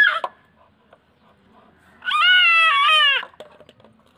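A baby's single long, high-pitched squeal, about a second long, a couple of seconds in, followed by faint splashes in the tub water.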